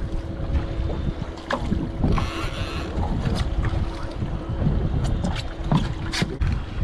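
Wind buffeting the microphone on an open boat at sea, with water moving along the hull. A faint steady hum runs underneath and stops about six seconds in, and a few sharp clicks and knocks come between.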